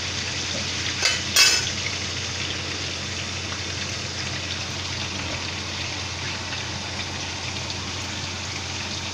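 Chicken wings deep-frying in hot oil in a wok: a steady sizzle and bubbling. Two brief knocks come about a second in.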